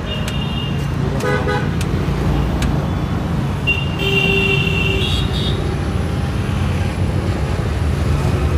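Street traffic rumbling steadily, with vehicle horns honking: a short toot at the start, another about a second in, and a longer honk from about four to five and a half seconds in.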